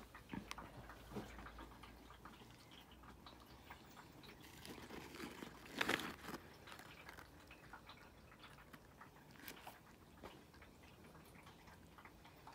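Faint crunching and chewing of cookies as scattered small crackles, with one louder crackle about six seconds in.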